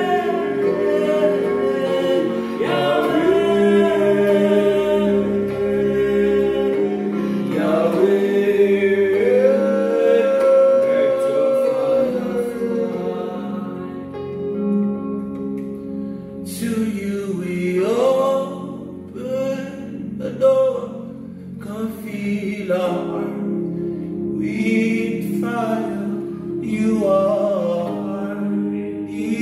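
Two men singing a slow gospel worship song over electronic keyboard chords. The first half is long held notes; from about halfway the singing breaks into shorter phrases.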